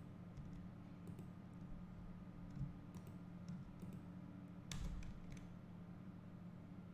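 Faint scattered clicks of a computer mouse and keyboard keys, a handful of presses with the clearest about five seconds in, over a low steady hum.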